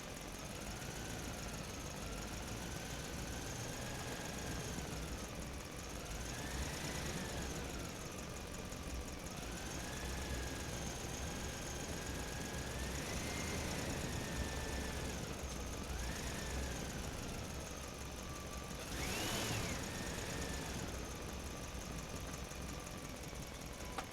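A small motor whining, its pitch swelling up and falling back again and again over a low rumble, with one brief sharper rise near the end.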